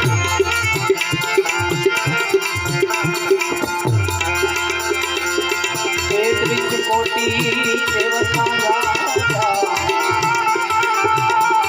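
Instrumental interlude of a Gujarati devotional bhajan: a harmonium holds steady notes and plays a melody over a quick, even beat on hand drums. The melody grows busier about halfway through.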